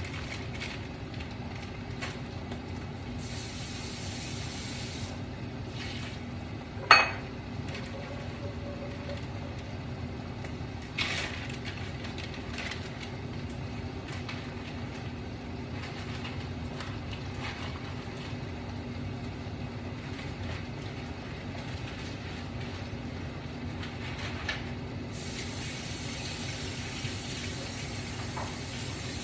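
Chicken broth and flour-stick noodles simmering in a covered wok, a steady hiss. A sharp clink about seven seconds in is the loudest sound, with a softer one about four seconds later.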